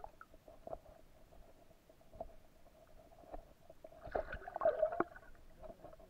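Muffled underwater sound picked up by a submerged camera: a faint steady hum with scattered soft clicks and knocks, and a louder cluster of knocks and gurgles about four to five seconds in.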